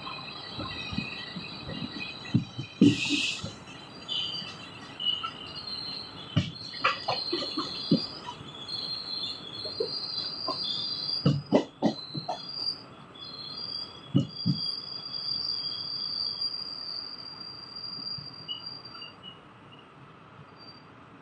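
Indian Railways passenger train rolling slowly into a station, heard from the coach. Its wheels give an on-and-off high-pitched squeal, held longest in the second half, over irregular clunks of the wheels crossing rail joints and points. A short hiss comes about three seconds in.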